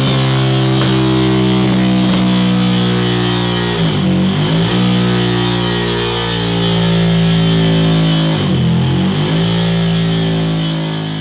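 Ducati Monster 797's air-cooled L-twin engine, breathing through a Scorpion Serket Taper slip-on exhaust, running hard on a dyno at steady revs. Twice, about four seconds in and again near nine seconds, the revs drop briefly and climb back.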